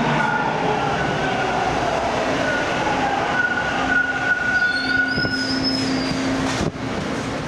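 TTC Bombardier T1 subway train running through a station: a steady rumble of wheels on rail with a held motor whine. A short high wheel squeal comes about five seconds in, and a sharp knock just before the end.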